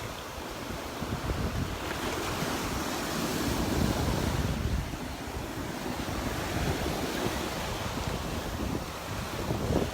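Gulf surf washing onto the beach, with wind buffeting the microphone in uneven low gusts.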